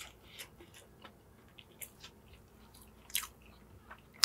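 A mouthful of toasted fried chicken sandwich being chewed close to a clip-on microphone, with irregular soft crunches from the grilled bread crust.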